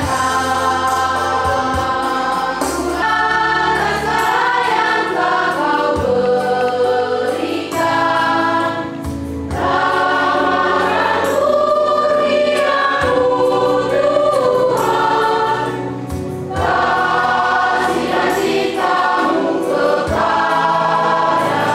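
Church choir singing a hymn in phrases, with short breaks between lines, over a steady low accompaniment.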